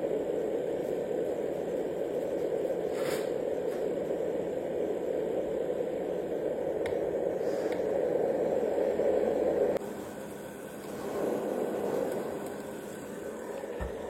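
Fan-based white noise machine running: a steady, even rushing noise, strongest in the low-middle range. About ten seconds in it drops suddenly to a lower level, then swells and fades again as the setting changes.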